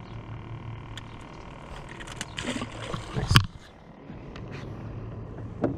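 A steady low hum with a faint high whine, broken about three seconds in by a single loud thump, after which the hum is quieter.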